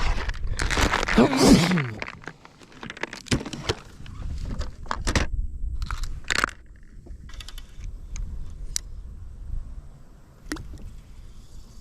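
Gear being handled aboard a small plastic fishing boat. A loud rustling scrape with a brief falling creak comes in the first two seconds, followed by scattered clicks and knocks.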